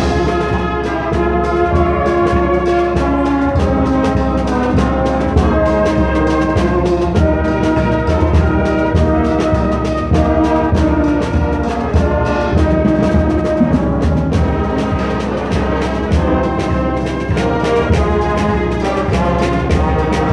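Brass band playing a slow hymn tune in full harmony: held chords that change every second or so, with percussion strokes running through them.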